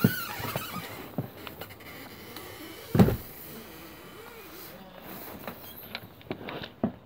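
A house door being opened and shut, with a loud thud about three seconds in, among scattered clicks and knocks and the rustle of handling and footsteps.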